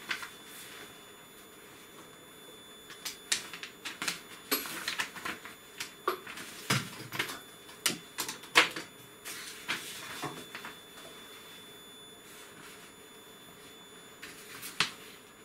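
Irregular clicks and small knocks of test leads and tools being handled on a workbench: a rapid scatter through the middle and one more sharp click near the end.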